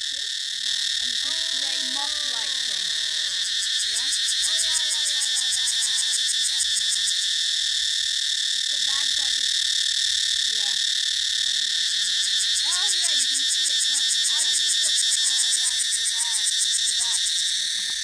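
A cicada singing close by: a loud, continuous high buzz with a fast, even pulsing, slowly swelling in the second half.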